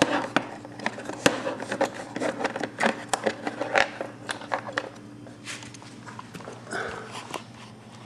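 Wires being pushed through a hole in a scooter's plastic body panels: a run of irregular clicks, crackles and scrapes of wire against plastic, thinning out after about five seconds, over a faint steady hum.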